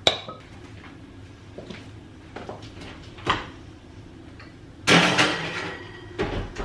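Kitchen utensils and dishes being handled: a few separate knocks and clinks, with a louder clatter about five seconds in.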